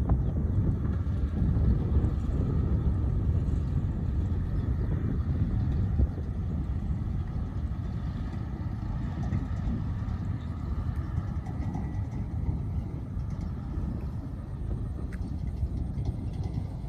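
Diesel engine of heavy earthmoving machinery running steadily, a dense low rumble that eases slightly about six seconds in.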